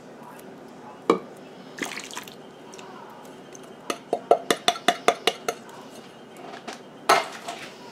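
Canned diced tomatoes being emptied into a slow cooker, with wet plops of tomato and juice. About four seconds in there is a rapid run of about ten taps on the upturned can, and a louder clatter near the end.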